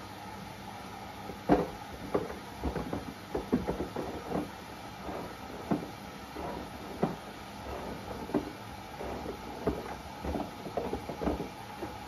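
Washing machine running with a steady hum. From about a second and a half in come irregular knocks and clunks, the first the loudest, as the iPhone 11 tumbles against the drum.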